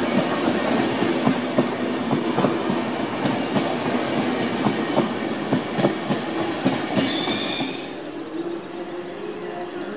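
SBB double-deck intercity coaches rolling slowly through curved pointwork, wheels clicking and clacking over rail joints and frogs. About seven seconds in there is a brief high wheel squeal, then the clatter gives way to a quieter hum.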